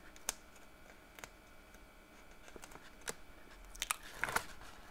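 Fingernails picking at and peeling the protective liner off a strip of double-sided adhesive tape on paper: faint scattered clicks and crinkles, with a quick cluster of them near the end.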